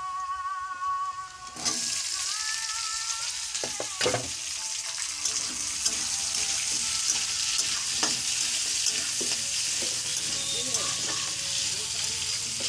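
Sliced onions going into hot oil in a kadai: a sizzle starts suddenly about a second and a half in and carries on steadily. A metal spatula knocks and scrapes against the pan as the onions are stirred, with sharp knocks about four and eight seconds in.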